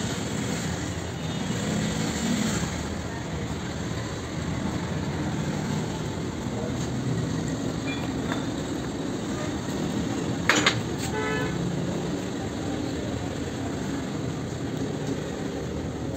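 Steady street traffic noise, with a sharp knock about ten and a half seconds in followed by a short vehicle horn toot.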